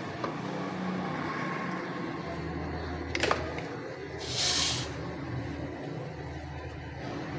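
Wooden spatula moving through heating oil in an aluminium pot, with one sharp knock against the pot a little after three seconds and a short hiss about a second later, over a low steady hum.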